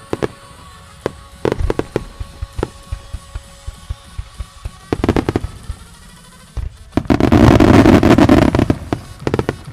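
Starmine fireworks display: a run of shell bursts popping and booming with music playing. About seven seconds in, a dense barrage of bursts and crackle, the loudest part, lasts nearly two seconds before single bangs resume.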